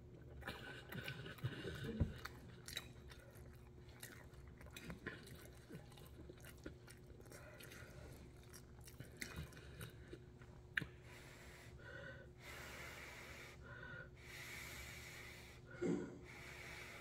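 Close-miked chewing of a mouthful of noodles with vegetables: wet mouth clicks and smacks, with a louder smack about two seconds in.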